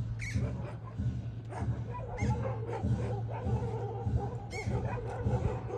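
Repeated short animal calls over a steady low hum.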